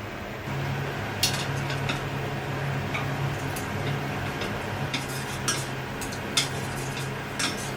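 Small hard objects being handled, making about seven light clicks and clinks spread across a few seconds, over a steady low hum.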